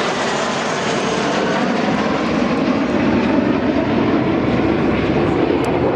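Jet engines of a low formation of Dassault Super Étendard and Rafale fighters passing overhead: a steady, dense roar that grows louder as the jets approach.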